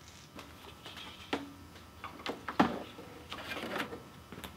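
Scattered light clicks and taps of hands handling a wiring harness and zip ties at a car's radiator support, the sharpest click about halfway through.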